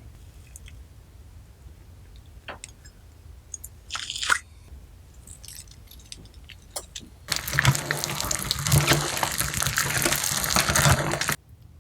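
Slime being worked by hand: a few scattered wet clicks, then about four seconds of loud, dense crackling and squelching that stops suddenly near the end.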